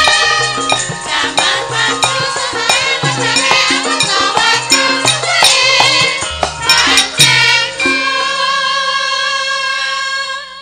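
Javanese gamelan music with quick, dense percussion strikes under women's voices singing together. About eight seconds in, the percussion stops and the held singing carries on alone, fading at the end.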